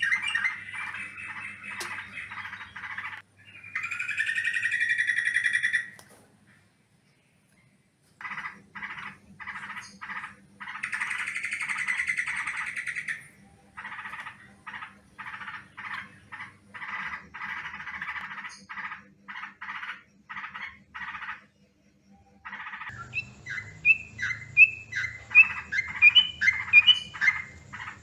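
Yellow-vented bulbul (trucukan) calling vigorously, as in a lure recording for bird trapping. It gives rapid runs of short chattering notes and longer bubbly phrases. The runs come in edited takes, broken by a brief silence about a quarter of the way in and another about four-fifths in.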